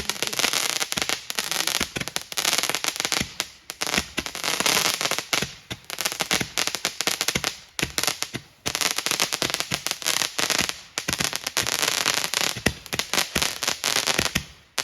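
Consumer fireworks crackling: dense, rapid pops in waves of a couple of seconds, with short lulls between them.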